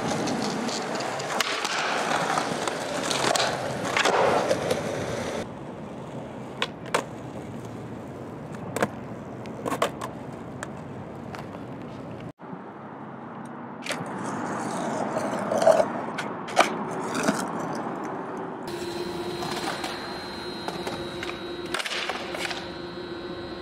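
Skateboard wheels rolling on concrete, with sharp clacks of the board popping and landing several times across a few cut-together clips. A steady hum joins in for the last few seconds.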